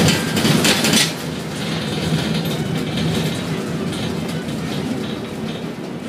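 Container gantry crane machinery running: a steady rumble with a low hum, and a louder rattling clatter in the first second.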